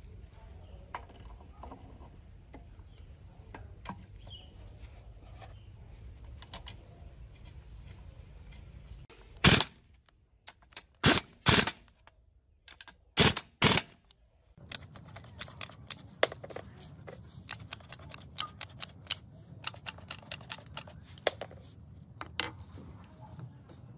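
Pneumatic impact wrench firing in five short, loud bursts as it runs down bolts on the engine block. Afterwards, many light metal clicks and taps of parts being handled.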